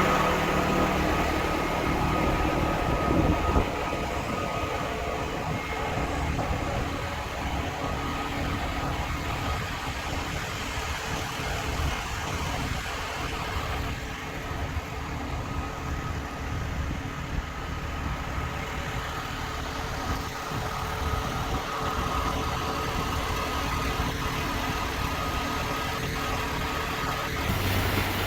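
Hurricane wind and heavy rain making a steady, loud rushing noise, with a faint steady hum underneath.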